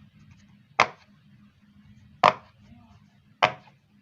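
Silicone pop-it fidget toy bubbles being pressed one at a time, three sharp pops a little over a second apart.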